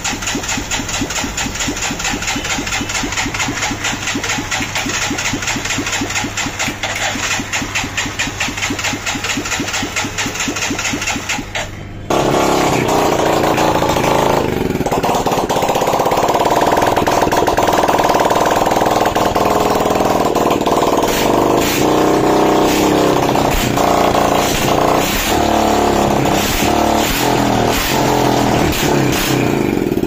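Bajaj CT's rebuilt single-cylinder four-stroke engine running with its silencer off, in a fast, even train of firing pulses. About twelve seconds in the sound jumps to a louder, harsher stretch of engine noise.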